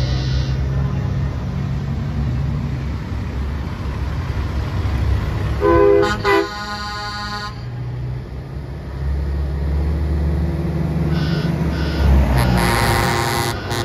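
Semi trucks in a convoy passing with diesel engines running, and truck horns blowing: two short loud blasts about six seconds in, then another horn blast near the end.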